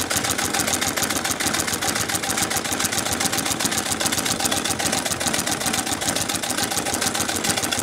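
Singer 31K15 treadle sewing machine stitching leather at a brisk treadle-driven speed: a fast, even mechanical clatter of needle and feed strokes.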